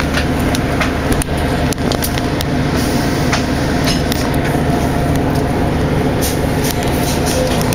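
Interior of a 2003 Orion VII diesel bus under way: its Detroit Diesel Series 50 engine running steadily under road and tyre noise, with frequent short clicks and rattles.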